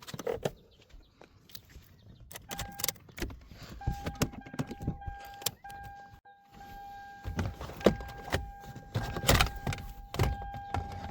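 Clicks and knocks of the gear shifter and console trim being handled in a 2011 Toyota Highlander. From about two and a half seconds in, the car's steady electronic warning tone sounds with a few short breaks.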